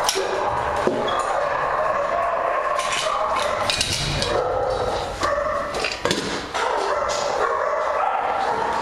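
Many dogs barking at once, the barks overlapping into a continuous chorus with no break.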